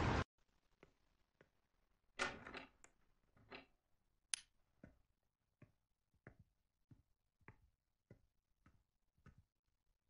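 A latch and door rattling open, a sharp click, then footsteps of shoes on a floor at an even walking pace, a little under two steps a second.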